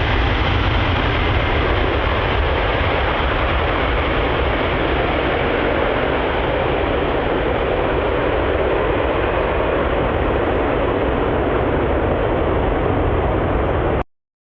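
Boeing airliner's jet engines at takeoff power: a loud, steady rushing noise that cuts off suddenly near the end.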